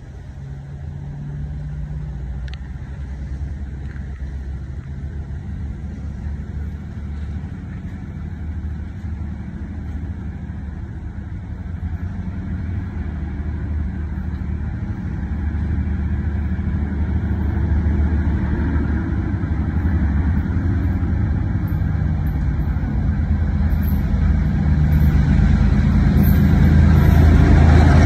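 Diesel freight locomotives approaching along the track, their engines a low, steady rumble that grows louder until the lead locomotive is alongside at the end.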